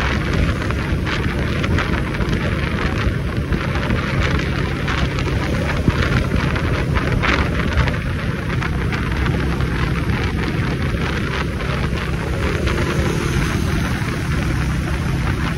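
Wind rushing and buffeting over the microphone of a moving motorcycle, with the motorcycle and road noise underneath.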